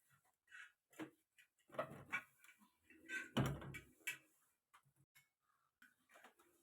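Quiet, scattered knocks and clicks of plastic fridge shelves and containers being handled while the fridge is wiped down. The loudest is a duller thump about three and a half seconds in.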